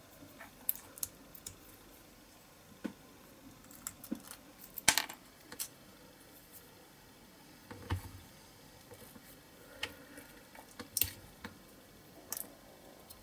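Small metal hand tools clicking and scraping against a diecast metal toy car body as it is worked by hand. Sparse light clinks, with the loudest short scrape about five seconds in and a duller knock a few seconds later.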